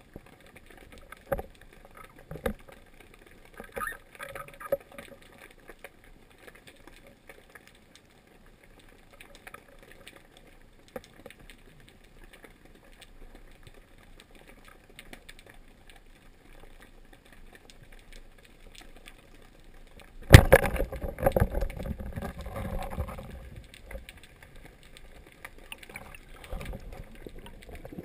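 Underwater sound picked up through a camera housing on a speargun. For about twenty seconds there are only faint clicks and knocks. Then a sudden knock sets off loud churning water noise as the diver swims up toward the surface.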